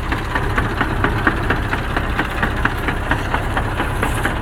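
KAMAZ truck gearbox knocking in reverse gear, a regular train of sharp knocks about four a second over the steady sound of the diesel engine. The owner places the knocks in the gearbox itself, not in the axle reduction gears.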